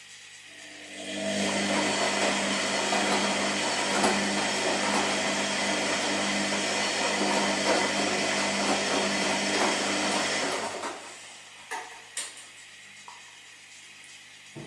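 Washing machine running: about a second in its motor and drum start with a steady whirring hum, run for about ten seconds, then stop, followed by two short clicks or knocks.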